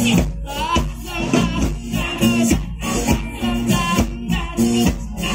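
Live band music with singing over acoustic and electric guitars, bass and drums, keeping a steady beat.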